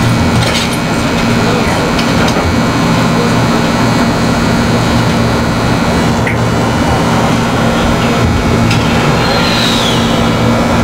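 Pen-style rotary tattoo machine running steadily against the skin: a constant low hum that holds at one level.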